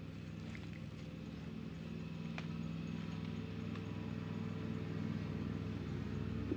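A steady low engine hum with several pitched lines, slowly growing louder, with a few faint clicks over it.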